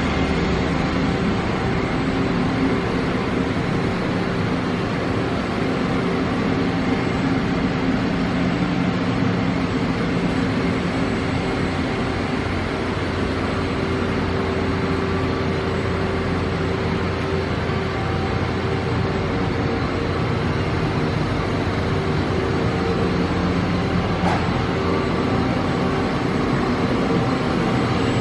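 Mazak Variaxis 630-5X five-axis machining center running under power, a steady mechanical hum and whir with several steady tones underneath.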